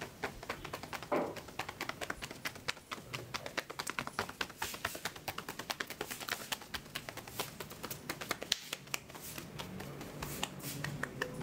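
Rapid percussive hand strikes of a barber's massage: palms chopping and slapping on a client's shirt-covered arm, several a second, with one louder hit about a second in and a brief pause about eight seconds in.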